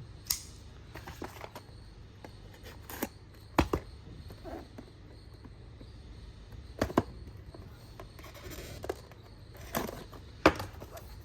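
Parcels being handled and opened by hand: scattered clicks, taps and rustling, with a short scraping stretch about two-thirds of the way through and a sharper knock near the end.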